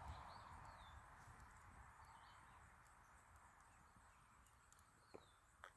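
Near silence: faint outdoor ambience with a few short, faint high chirps and two soft clicks about five seconds in.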